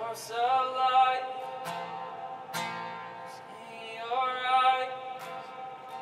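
Live worship music: acoustic guitar strumming under a held, wordless vocal line sung in two long phrases with vibrato.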